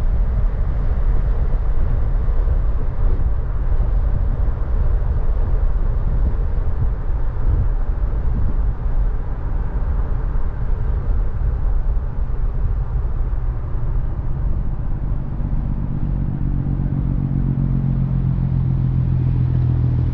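Car with loud exhaust pipes running, a deep steady rumble; in the last few seconds a low, even engine note stands out clearly.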